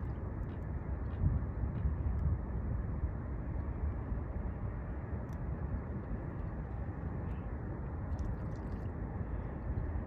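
Steady low rumble of outdoor background noise with a few faint clicks.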